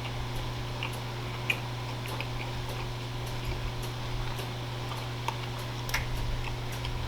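Chewing with the mouth close to the microphone: soft, irregular mouth clicks a few times a second, over a steady low hum.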